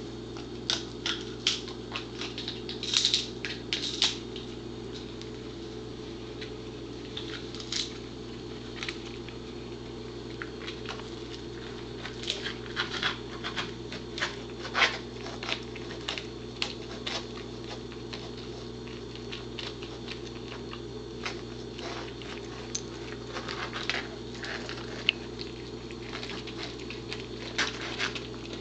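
Pembroke Welsh Corgi chewing and gnawing a dehydrated buffalo tripe strip: irregular clicks and crunches in bunches, with quieter stretches between, over a steady low hum.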